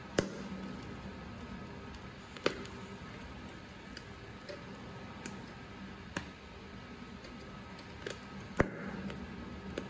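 Stainless steel tongs clicking against a wire grill rack while turning grilled pig trotters: about six sharp clicks at irregular intervals, the loudest near the start and shortly before the end, over a steady low hiss.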